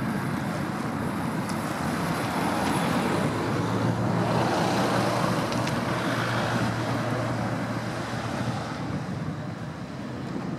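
Wind on the microphone over harbour water, with an engine passing close by. Its noise swells from about three seconds in and fades after about eight, carrying a steady low hum.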